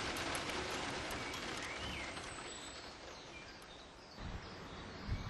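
Steady rain ambience fading out over about four seconds, with a faint bird chirp partway through, leaving a quieter outdoor background.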